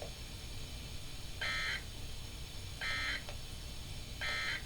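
Three short EAS end-of-message data bursts on NOAA Weather Radio, each a brief buzzy digital tone under half a second long, about a second and a half apart. They mark the end of the test tornado warning message.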